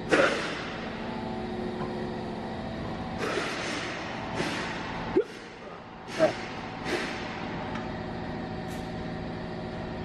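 A steady mechanical hum runs throughout, broken by about six short hissing bursts, the first right at the start and the rest spread through the middle.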